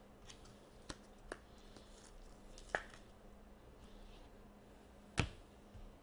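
Trading cards and a plastic card sleeve being handled on a desk: a few light clicks and taps, then a sharper knock about five seconds in as cards are set down on the tabletop.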